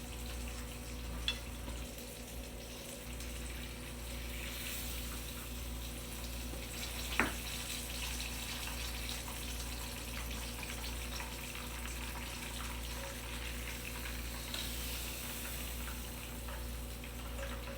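Cornmeal-coated tilapia fillets sizzling steadily in a frying pan, with two brief clicks about a second in and about seven seconds in.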